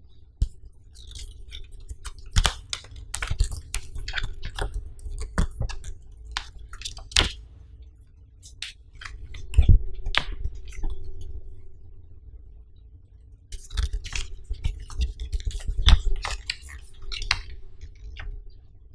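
Close-miked paper handling: a printed booklet and a folded warranty card rustling and crinkling as they are turned over and unfolded, in irregular crackly spells with a short lull partway through.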